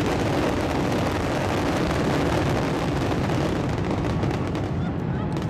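Fireworks barrage: many shells bursting in quick succession, merging into a continuous rumble that eases slightly near the end.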